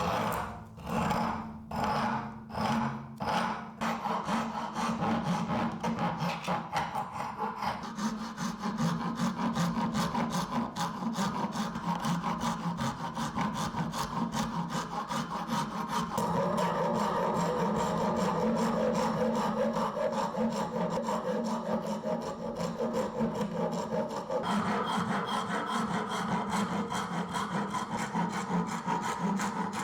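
Wood being worked by hand with an abrasive tool. It starts with a few slow strokes, about one a second, then goes into rapid, continuous back-and-forth scraping strokes.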